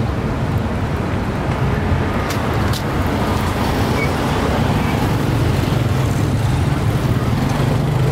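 Steady low hum of motorbike engines and street traffic, with people's voices in the background and two short clicks a little over two seconds in.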